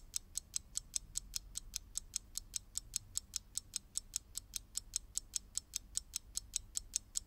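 Ticking sound effect: light, sharp ticks at an even, fast rate of about five or six a second, like a clock mechanism.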